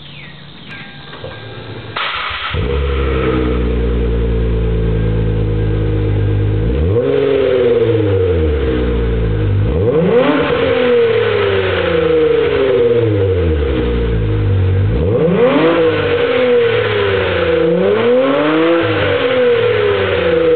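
A 2003 Hyundai Tiburon GT's 2.7-litre V6 through a custom 2.5-inch catback exhaust with no resonator and an HKS Hi-Power muffler. It starts up about two seconds in and settles into a steady idle. It is then revved four times, each rev rising and falling back to idle.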